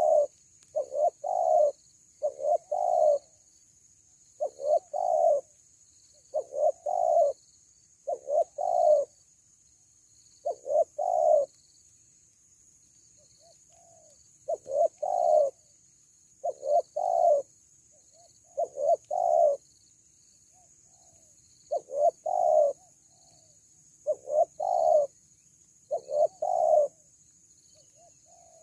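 Spotted dove cooing: short phrases of about three notes, repeated roughly every two seconds, with a couple of longer pauses between runs.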